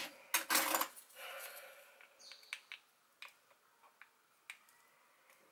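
Kitchen handling noises at a glass mixing bowl: a brief scrape and knock in the first second, a softer rustle, then a few faint separate clicks, like a spoon and small dishes being handled.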